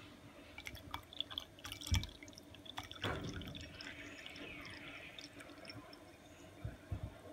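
Soy milk poured in a thin stream from a carton into a glass over grass jelly cubes: first dripping and trickling with a low knock about two seconds in, then a steady splashing pour from about three seconds on as the glass fills.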